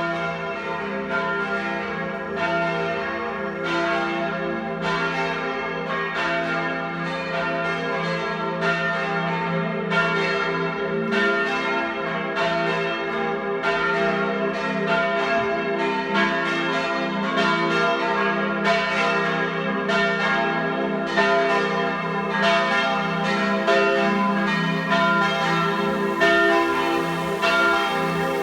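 Several swinging church bells of a parish church ringing together, their strikes falling irregularly and overlapping, roughly one a second or faster, each leaving a long ringing hum. It is a partial peal, only some of the tower's bells, rung to call to an evening Mass.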